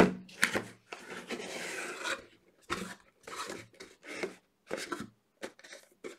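Cardboard packaging box being opened by hand: a sustained scrape about a second in as the lid comes open, then short rubs, rustles and light taps of fingers on the cardboard and the paper sleeve inside.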